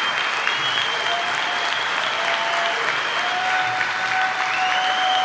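A large audience applauding, dense and sustained, with a few long steady tones sounding above the clapping.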